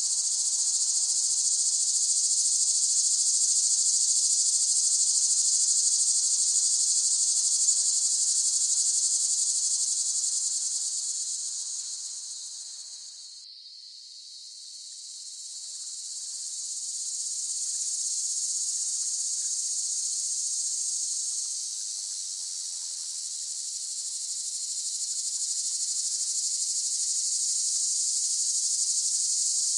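Cicadas singing: a dense, steady, high-pitched buzz that fades down about halfway through, then swells back up.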